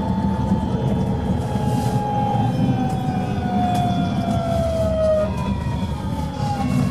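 Riding in AEG GT8N tram car 3033: a steady rumble of the wheels and running gear under the whine of its GTO-thyristor three-phase traction inverter. The whine slides slowly down in pitch as the tram slows, with a second, shorter falling whine near the end. This car's electronics are unusually loud.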